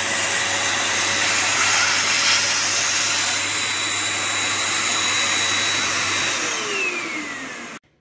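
Eureka Forbes 800 W handheld vacuum cleaner running steadily as its hose nozzle sucks dust off a table edge: a loud rushing air noise with a steady high motor whine. Near the end the whine falls in pitch, and the sound then cuts off abruptly.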